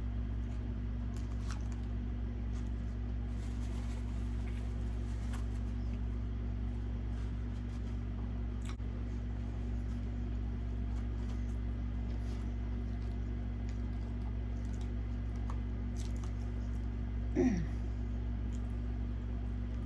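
Quiet, wet chewing and small mouth clicks of someone eating, over a steady low hum. A short voiced sound, falling in pitch, comes near the end.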